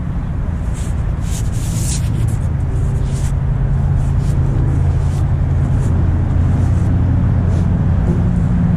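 Steady low rumble with scattered scraping, rustling clicks as yellow plastic gas pipe is pushed and dragged down into a dirt trench. The clicks come mostly in the first three seconds and are sparser after that.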